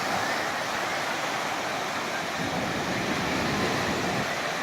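Steady rushing of sea surf.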